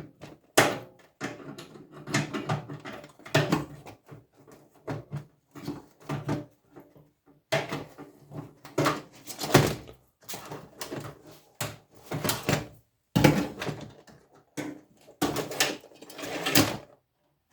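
Irregular clanks, knocks and rattles of sheet metal as a microwave oven is taken apart by hand, in uneven bursts with short pauses; the loudest knocks come about a second in and near the middle.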